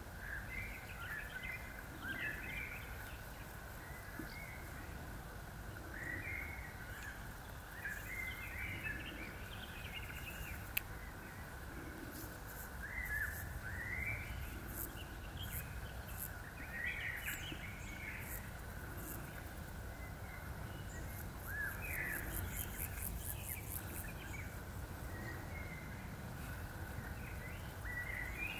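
Outdoor field ambience: birds chirping on and off over a steady high-pitched hum and a low rumble. A single sharp click comes a little before the halfway point, and a fast run of very high ticks about three quarters of the way through.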